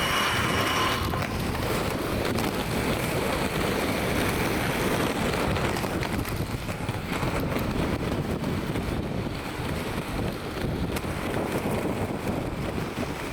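Steady, gusting wind noise buffeting the microphone, with a brief high tone that stops about a second in.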